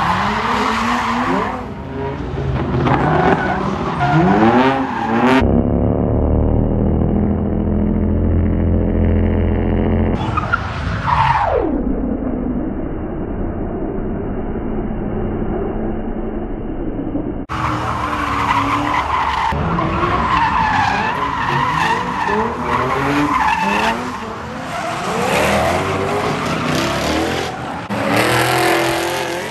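Drift cars sliding sideways, engines revving up and down hard with tyre squeal. The sound changes abruptly several times as the takes cut, with one steep fall in engine pitch about eleven seconds in.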